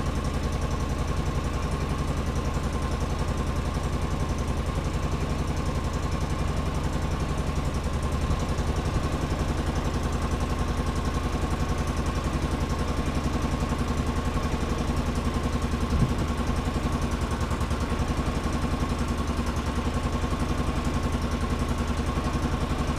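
2005 Polaris Ranger XP 700's twin-cylinder EFI engine idling steadily, with much of the noise coming from the exhaust. It is not firing cleanly, which the owners think could be bad gas. A single short knock about sixteen seconds in.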